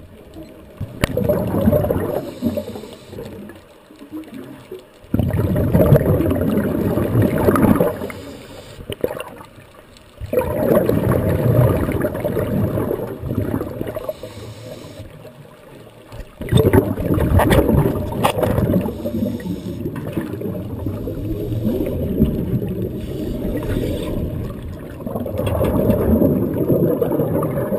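Scuba diver's exhaled breath bubbling out of a regulator underwater, heard muffled through the camera housing as gurgling rushes of two to three seconds, about every five seconds, with the breaths running closer together near the end.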